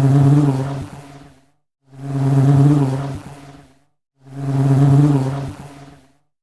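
Honey bee buzzing in three passes, each swelling up and fading out over about two seconds, with silent gaps between them.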